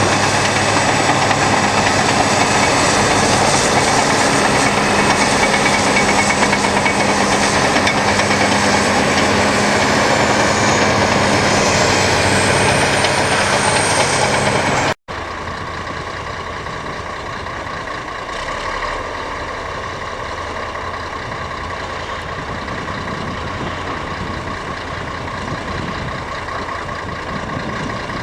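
Caterpillar D7 bulldozer's diesel engine running steadily, with a high whine that dips and rises again a little before halfway. About halfway through the sound cuts out for an instant and comes back quieter and duller.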